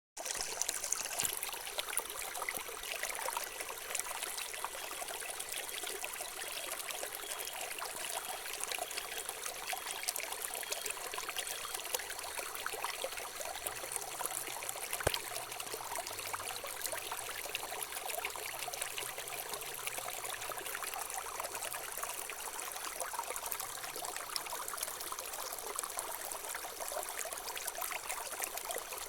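Running water trickling and splashing steadily, a continuous babble of small drops.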